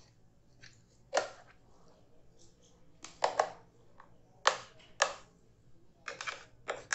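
Sharp, irregular knocks, some in quick pairs, as a mixer-grinder jar is tapped against the rim of a pot to shake out thick almond paste.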